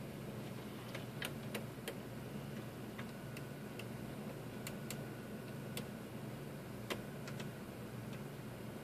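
Faint, irregular light clicks from the detented knobs of a Tektronix DPO 4032 oscilloscope being turned, over a steady low electrical hum.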